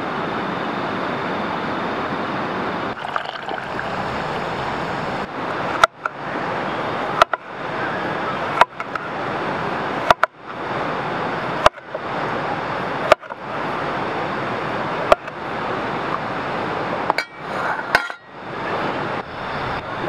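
Steady rush of flowing river water throughout, with a knife chopping through cucumber onto a wooden cutting board: sharp knocks about every second and a half, starting about six seconds in.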